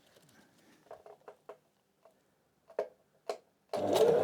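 A few faint clicks of handling, then an electric sewing machine starts stitching shoulder-strap webbing near the end, running steadily.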